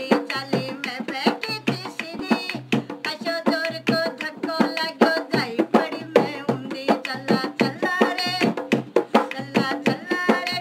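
Live Rajasthani folk music for a kathputli puppet dance: a dholak drummed in quick strokes, with singing over it.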